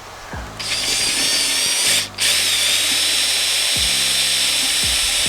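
Small handheld power tool with a bit, switched on with a high-pitched whine about half a second in, stopping for a moment near two seconds, then running steadily at speed, ready to cut a hole into a 3D-printed plastic part.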